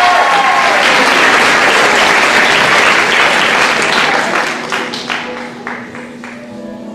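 Audience applauding, thinning out after about four seconds into scattered claps.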